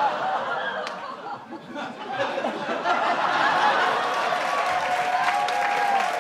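Live studio audience laughing and cheering as a sitcom scene ends, with clapping building through the second half into applause.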